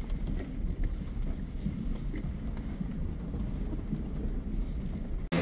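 Low, muffled rumble of background noise with a few faint knocks, cutting off abruptly near the end.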